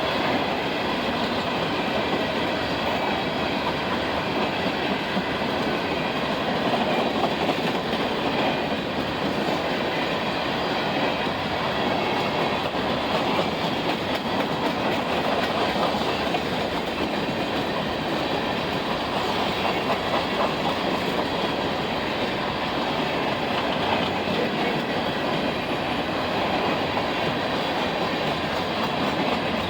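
Freight train cars rolling past, a steady wheel-on-rail noise that holds at an even level throughout.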